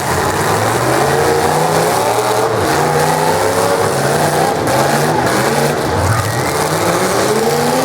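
Engines of full-size demolition derby cars revving hard, several at once, their pitch climbing and dropping as the cars accelerate and back off.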